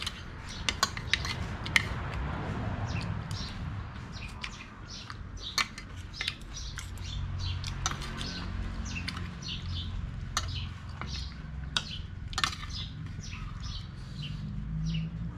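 Metal spoon and fork clinking and scraping against a ceramic soup bowl in many short, irregular clicks. Small birds chirp in the background.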